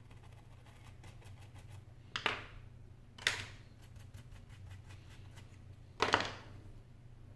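Three short clatters of small tools and iPhone 6 parts being handled and set down on a work mat, about two, three and six seconds in. Faint small ticks of screwdriver work come before them.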